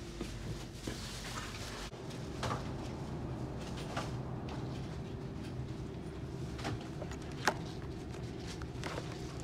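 Steady background hum of a shop, with a few short clicks and knocks from notebooks being handled on a store shelf; the sharpest click comes near the end.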